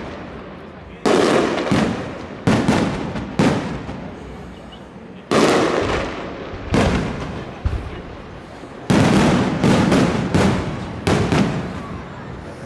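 Aerial firework shells bursting in a display, about ten loud bangs at irregular intervals, each trailing off before the next.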